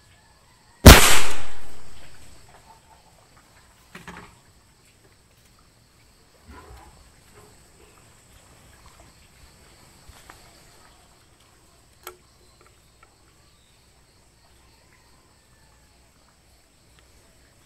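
.22-calibre air rifle firing a single shot about a second in: one sharp report with a tail that fades over about a second and a half. A few faint knocks and clicks follow.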